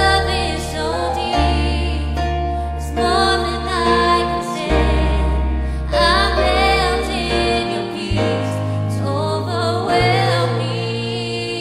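Church worship team singing together, a woman's voice prominent with others in harmony, over keyboard accompaniment with long held bass notes that change every two or three seconds.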